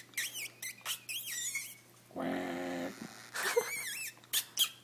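Pet bird chattering in quick, wavering high chirps, in two spells, with a short low voice-like sound between them.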